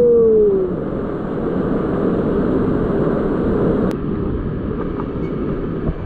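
Waterfall pouring into its plunge pool: a loud, steady rush of falling water. A brief falling vocal sound trails off in the first second, and a single click comes about four seconds in.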